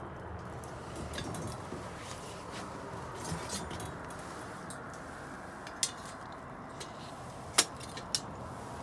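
Wood bonfire burning with a steady hiss and light crackling, and three sharp pops in the last few seconds, the second one loudest.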